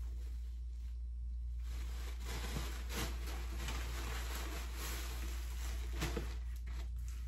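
Rustling of a cloth drawstring dust bag and the white wrapping inside it being handled and unfolded, with a few soft bumps, over a steady low hum.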